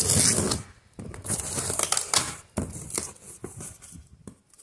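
A cardboard box being handled and opened by hand: irregular rustling, scraping and tearing of cardboard, tape and plastic wrap, loudest in the first half-second.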